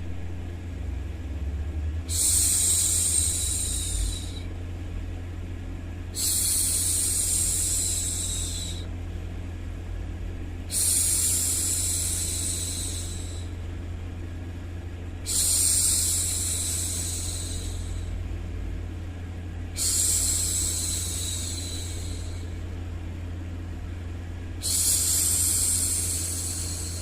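A woman's voice shushing 'shhh' six times, each hush about two seconds long and coming about every four and a half seconds, over a steady low background hum.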